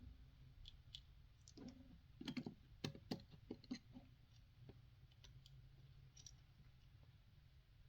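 Faint, scattered clicks and taps of small plastic and metal parts being handled while taking apart a Nintendo Switch Joy-Con, most of them in the first half, then near silence with only a low room hum.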